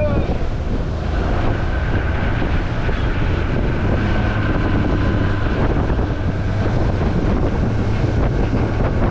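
Wind rushing over the microphone on a 25-foot Sea Chaser center-console boat running at speed, with water rushing past the hull and wake and a steady low engine drone underneath.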